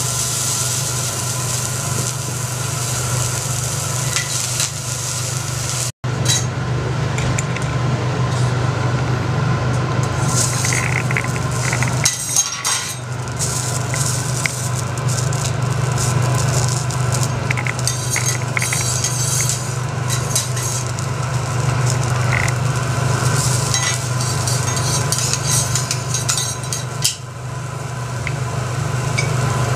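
Food sizzling on a hot teppanyaki steel griddle, with a metal spatula scraping and clinking on the plate now and then, over a steady low hum. The sound cuts out for an instant about six seconds in.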